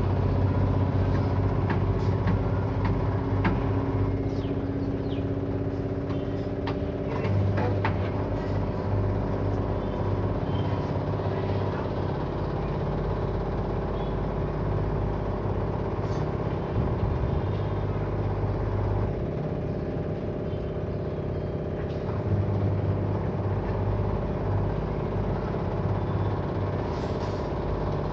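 Washing machine on its spin cycle without anti-vibration pads: a steady low hum that swells and fades every few seconds as the drum shakes the cabinet, with scattered light clicks from loose objects rattling on top. The heavy vibration is the sign of the machine standing unpadded on the floor.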